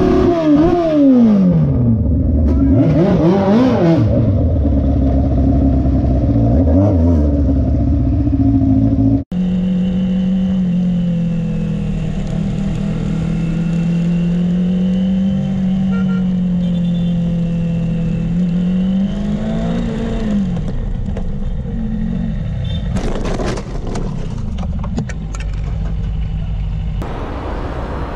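Motorcycle engine heard from the rider's onboard camera. It revs up and down steeply a few times, then after a cut it runs at a steady, slightly wavering pitch while cruising at highway speed.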